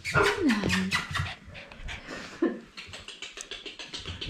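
A dog panting quickly and evenly, close by, with a short falling vocal sound near the start.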